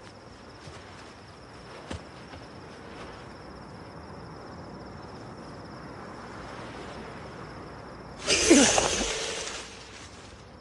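Low, steady background hush, then about eight seconds in a sudden loud rushing burst with a falling tone in it, dying away over about a second and a half.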